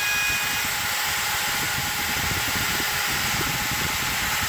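Router spindle of an X-Carve CNC machine running at high speed while its bit mills wood, a steady high-pitched hiss with no change in level.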